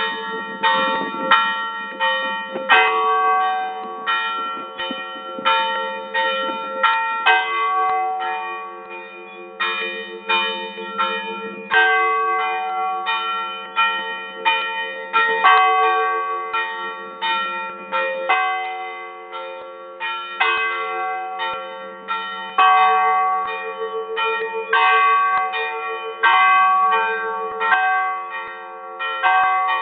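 A peal of church bells heard close up in the belfry: several stationary bells of different pitches struck by their clappers in a rapid festive rhythm, about two strokes a second, each stroke left ringing under the next.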